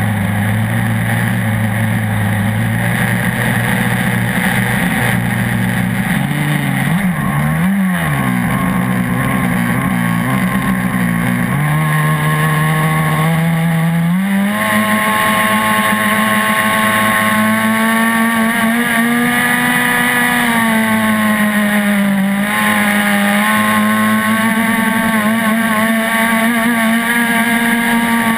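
Small two-stroke gas engine of an RC catamaran boat running steadily at low speed, wavering briefly, then climbing in pitch about twelve seconds in and holding a higher, steady speed with small rises and dips.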